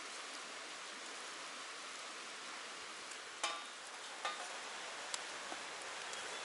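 Steady hiss of outdoor background noise, with two ringing metal clinks of cookware being handled a little past halfway and a few lighter ticks after.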